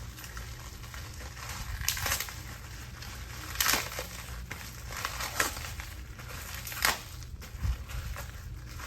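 Heavy packaging wrap being crumpled and pulled off a weather radio by hand: continuous crinkling with four or five louder, sharp crackles spread through.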